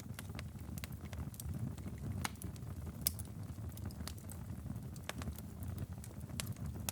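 Wood fire in a fireplace crackling, with irregular sharp pops over a steady low rumble; one louder pop about three seconds in.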